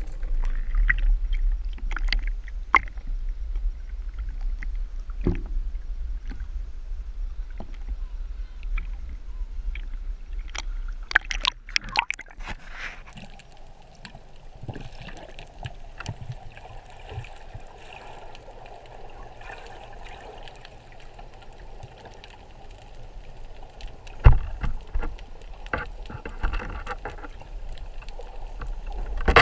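Underwater sound picked up by a camera in a waterproof housing on a speargun: a steady low rumble of moving water with scattered clicks and knocks. There is a dense flurry of clicks about eleven seconds in and one loud, sharp knock about two-thirds of the way through.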